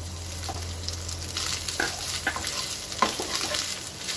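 Freshly grated coconut sizzling in hot oil with whole spices in a non-stick kadhai. A wooden spatula stirs it, clicking against the pan a few times, most sharply about three seconds in.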